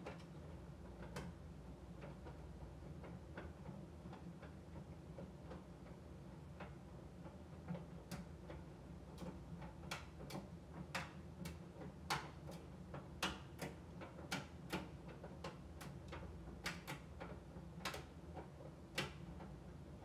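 AEG heat pump tumble dryer in its sensing phase, turning the drum in slow tumbles: a steady low motor hum with irregular light clicks and taps from the tumbling load, sparse at first and more frequent from about the middle on.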